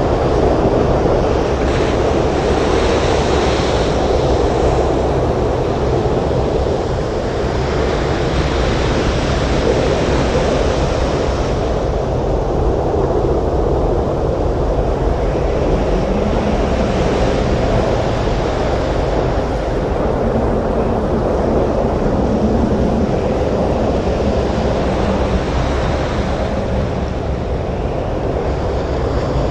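Storm surf breaking on a beach in strong wind: a loud, dense, steady rush of water and wind noise that swells and eases every several seconds.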